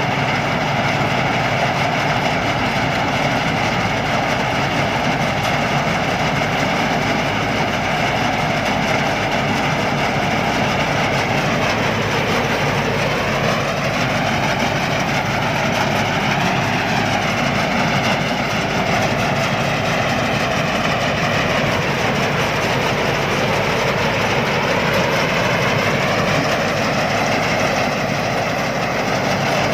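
Combine harvester's diesel engine running loud and steady at high revs. Its pitch dips and comes back up about midway, then once more later, as if under load.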